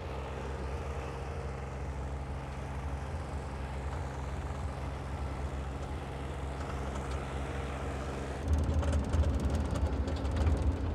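Komatsu mini excavator's diesel engine running steadily. About eight seconds in, a louder, rougher engine sound takes over.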